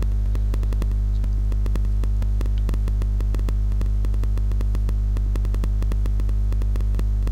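Loud, steady electrical mains hum with a rapid crackling buzz of clicks, picked up by the recording microphone.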